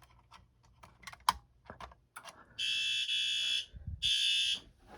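Fire alarm horn sounding its buzzy blare in blasts of about a second with short gaps, starting about halfway through: the system has gone into alarm. Before it come a few light clicks and knocks.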